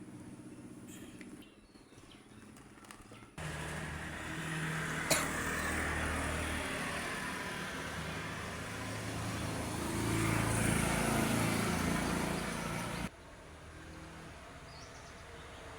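Suzuki GN125's single-cylinder four-stroke engine running steadily. It comes in abruptly about three seconds in, gets louder for a couple of seconds past the middle, and cuts off abruptly near the end, with one sharp click along the way.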